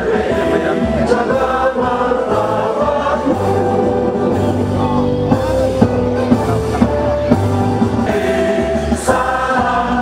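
Background music with sung vocals, held notes over a steady accompaniment.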